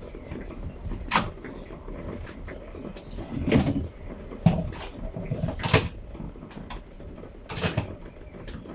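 Plastic training cones being picked out and knocked together: a handful of sharp clatters and rattles, a second or two apart.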